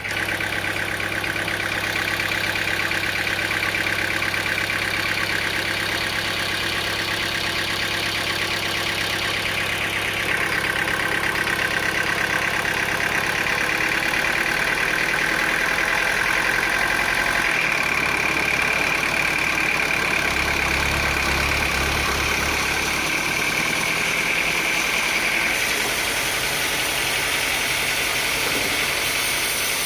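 Sawmill machinery running steadily: an engine or motor hum under a high whine that shifts in pitch a couple of times.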